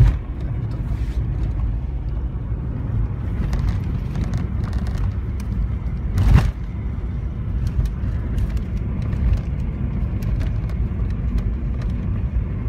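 Car interior road noise while driving on a wet road: a steady low rumble with scattered light clicks, and a louder thump about six seconds in.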